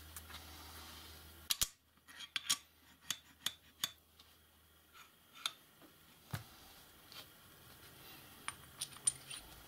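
Small machined steel parts of a grinding rest clinking and clicking against each other as they are handled and fitted together: a quick run of sharp metallic clicks about a second and a half in, then scattered single clicks and taps.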